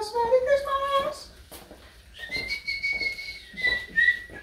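A person hums a few notes, then whistles a short tune about two seconds in: a held high note followed by two shorter ones, the last slightly lower.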